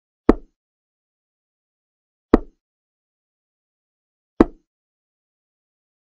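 Digital chess board's move sound effect: a short click as each piece lands, three times about two seconds apart, with silence in between.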